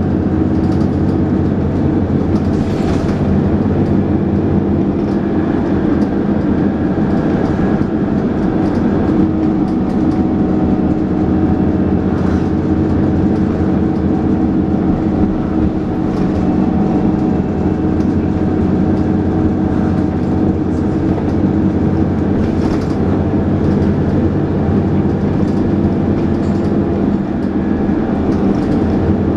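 Dennis Trident 2 double-decker bus heard from on board, its engine running steadily under way with the vacuum-cleaner-like whine of the cooling fan (the 'hoover') and engine thrash, over scattered rattles and knocks from the body.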